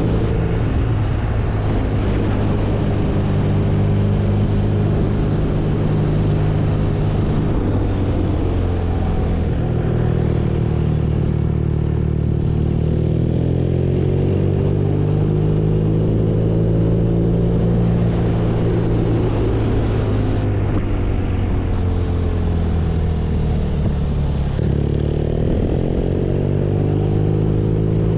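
BMW R nineT's air/oil-cooled boxer twin engine running under way, its pitch rising and falling with throttle and gear changes, with a sharp drop and climb again near the end.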